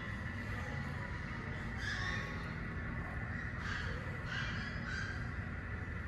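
Small puppy giving about four short, high-pitched yaps in the second half, over a steady low background hum.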